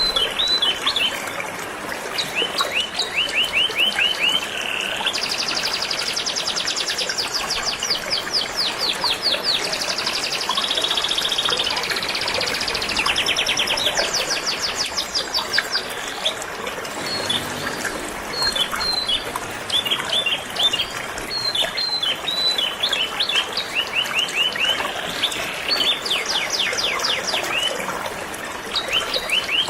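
Canary singing in runs of fast rolling trills and chirps over the steady rush of a flowing river.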